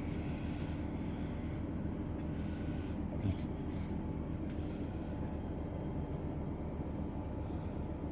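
Steady low mechanical hum, with a faint high hiss that stops about one and a half seconds in and a single light knock a little after three seconds.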